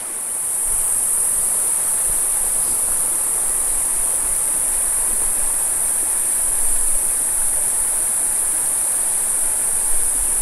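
A steady, high-pitched chorus of insects over the rushing of a shallow, rocky mountain creek.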